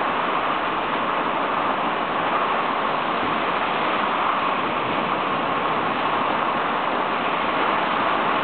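Torrential rain pouring down in a violent thunderstorm: a steady, unbroken hiss of heavy downpour.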